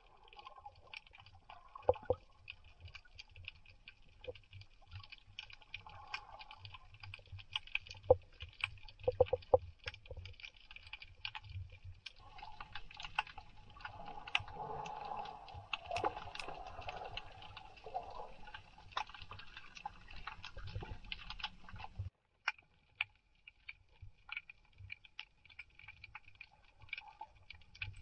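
Underwater ambience picked up by a submerged camera: irregular sharp clicks and crackles over a low rumble of water movement, with a longer noisy stretch in the middle. The low rumble drops out suddenly about three-quarters of the way through.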